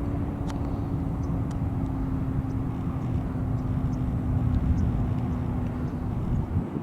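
Low engine rumble with a steady hum that slowly sinks a little in pitch, from a passing motor vehicle or aircraft; it dies away near the end.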